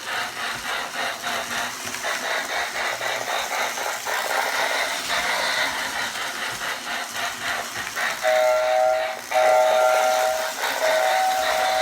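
Lionel 8206 toy steam locomotive running, its tender's electronic sound unit putting out a rhythmic simulated steam chuff in time with the motor. About eight seconds in the tender's two-note electronic whistle sounds three times in close succession, louder than the chuffing.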